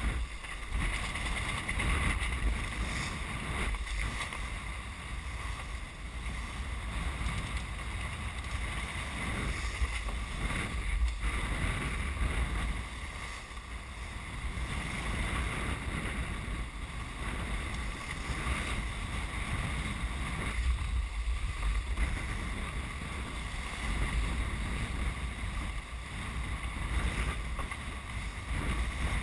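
Wind buffeting the microphone and water rushing along the hull of a Mini 6.50 racing sailboat under way at speed in a rough sea, swelling and easing in surges, with a faint steady tone underneath.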